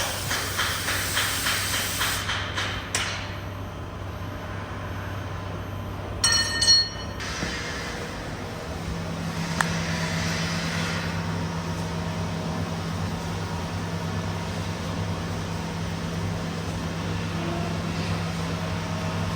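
Metal struck repeatedly with a hammer, about two or three blows a second, fading out after a couple of seconds; a short, loud high ringing tone about six seconds in; then a steady low machine hum.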